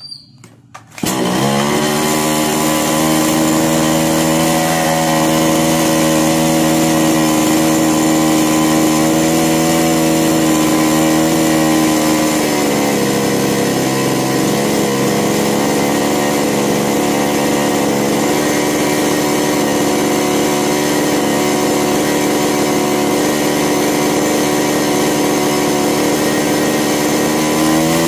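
Kisan Kraft chainsaw's two-stroke engine catching about a second in and then running steadily, its high-speed (H) carburettor screw just tightened one turn to cure stalling on throttle. About halfway through its speed dips a little and picks back up a few seconds later, while the carburettor screws are being turned with a screwdriver.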